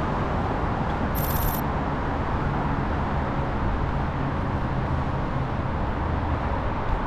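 Steady street traffic noise, with a brief high sparkling chime about a second in.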